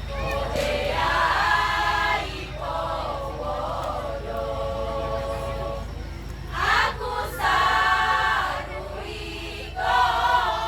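A choir singing in harmony, phrases of held chords that swell loudest about a second in, around the middle, and again near the end.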